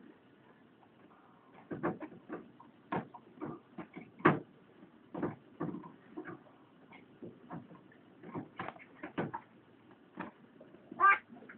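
An Airedale terrier playing with a new item: irregular knocks and clatters, with a short high squeak near the end.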